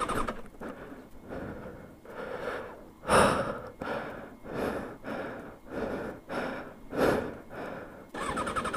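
A rider breathing hard inside his helmet, with two louder gasps. Near the end, the 2003 Kawasaki ZX-6R 636's electric starter begins cranking fast and evenly without the engine catching: the tip-over sensor, tripped when the bike fell, has cut the ignition.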